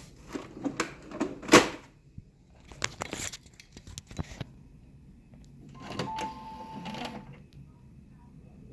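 Inkjet printer being handled after new ink cartridges are seated: a run of plastic clicks and knocks, the loudest about a second and a half in. Around six seconds in, the printer's motor whirs with a steady tone for about a second.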